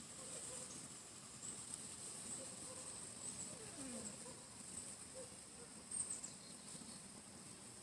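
Faint outdoor ambience: a steady high-pitched hiss with a few short, high chirps, the clearest about six seconds in.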